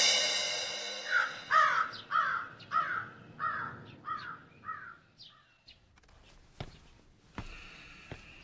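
A crow cawing: about eight harsh, falling calls at roughly two a second, growing fainter, as background music dies away in the first second.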